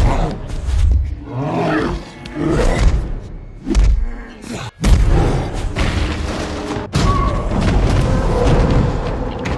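Action-film fight sound: Hulk's growling roars and several heavy punch and crash impacts, the sharpest about 7 seconds in, over orchestral score.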